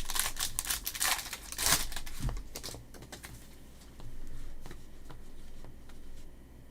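Trading cards being handled and flipped through by hand: a dense run of papery clicks and swishes for the first two and a half seconds, then fainter, scattered handling.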